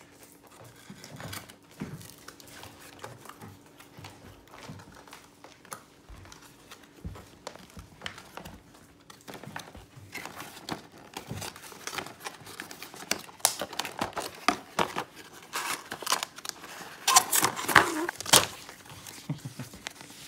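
A toy's cardboard retail box and its packaging being opened by hand: scattered clicks and rustles of card flaps and inserts, then a denser, louder stretch of crinkling and crackling packaging about two-thirds of the way through.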